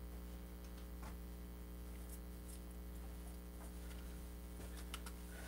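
Steady low electrical hum, with a few faint scattered clicks.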